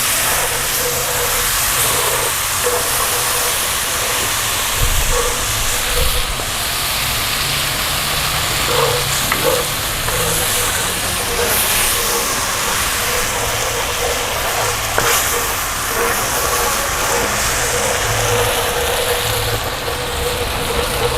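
Beef broth steadily hissing and sizzling in a hot frying pan with a butter-and-flour roux as it cooks into gravy, with a few light clicks scattered through.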